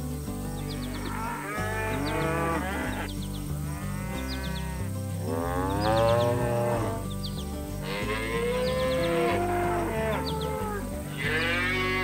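Cows mooing, about five long drawn-out moos one after another, over background music.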